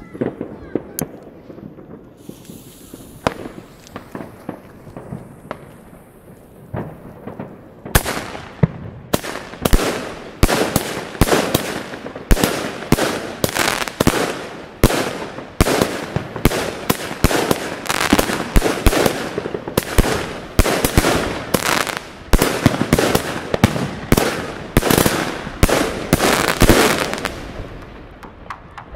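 Kometa Bhutan 25-shot consumer firework cake firing: after a quieter first eight seconds, its shots go off in rapid succession for about twenty seconds, each launch thump followed by a bursting break, then tail off near the end.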